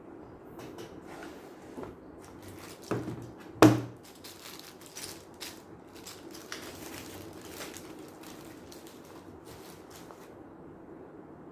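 Packaging being handled during an unboxing: crinkling and rustling of plastic wrap and packing material, with two sharp knocks about three seconds in as something is set down or bumped.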